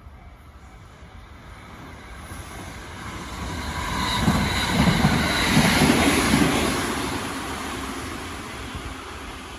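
A train passing a level crossing: it grows louder, peaks about halfway through with a few low rhythmic thuds from the wheels, then fades away.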